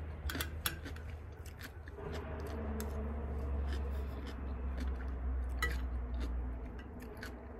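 A metal spoon clinks and scrapes against a ceramic plate of cucumber salad, with sharp crisp clicks of eating. A low rumble from the highway swells from about two seconds in and fades near the end.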